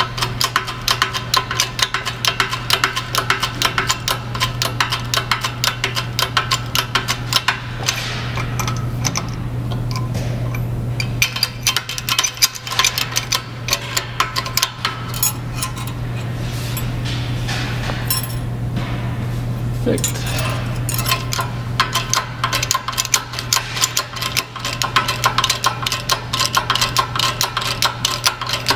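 Light metallic clinking and rattling as a ball bearing is handled on a steel pump shaft, with rapid small clicks throughout over a steady low hum.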